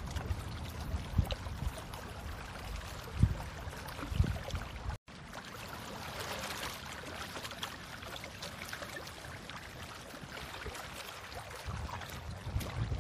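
Steady rushing, water-like noise at a shoreline, with a few low thumps in the first five seconds and a brief cut-out of all sound about five seconds in.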